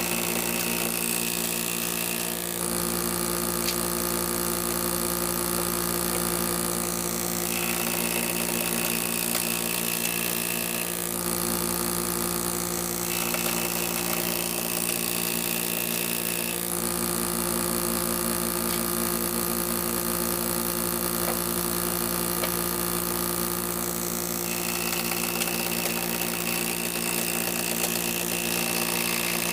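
Electric woodworking power tool's motor running steadily with a constant hum, its sound changing abruptly every few seconds.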